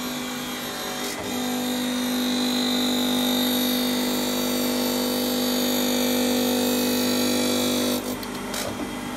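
Surface grinder running, its abrasive wheel grinding across the machine's own crash-damaged table to bring it back flat. A steady hum with a high whine that grows louder about a second in, then dips and breaks up near the end.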